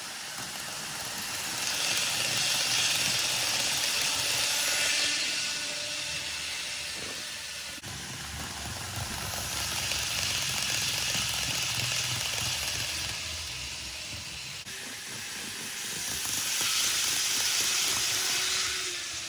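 N gauge model trains passing close by on the track, their motors whirring and wheels rolling on the rails: a hissing whir that swells and fades three times as three trains go past.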